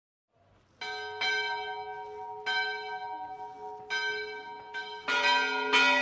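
Temple bells struck about seven times at an uneven pace, each strike ringing on into the next; about five seconds in, a louder, lower-pitched bell joins in.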